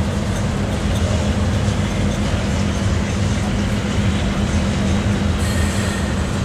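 Norfolk Southern freight train's empty double-stack well cars and autoracks rolling past with a steady rumble of steel wheels on the rails.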